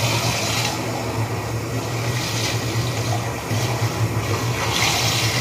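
Bathtub spout running steadily, water pouring into the tub and over hair held under it to wet it, with a steady low hum beneath.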